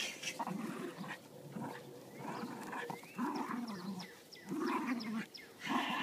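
Jack Russell terrier growling in repeated rough bursts while tugging and shaking a fur tug toy.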